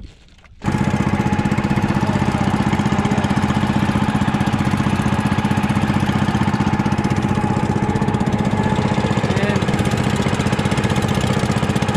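Small boat engine of an outrigger boat running steadily under way, with a fast, even pulsing beat; it comes in suddenly less than a second in.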